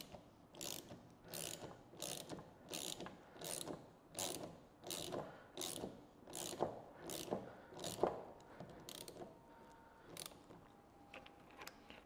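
Socket wrench ratcheting in a steady rhythm, a click roughly every two-thirds of a second, as it tightens the shear bolt of an insulation piercing connector and drives the connector's teeth through a meter tail's insulation. The clicking stops about ten seconds in.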